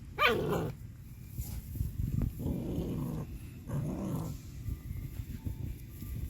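American Pit Bull Terrier puppy giving a short yelp about a quarter second in, then growling twice, a longer growl around two seconds in and a shorter one near four seconds.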